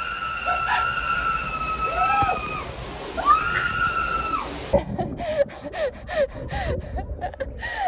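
Screaming inside a water-filled zorb ball as it rolls: one long held shriek, then a second shorter one, over water sloshing and splashing inside the ball. About five seconds in it cuts to short breathless laughing gasps, about three a second.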